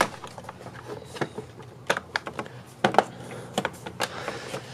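Irregular light clicks and taps of metal parts and hand tools being handled during a blow-off valve and hose installation, with a few sharper knocks.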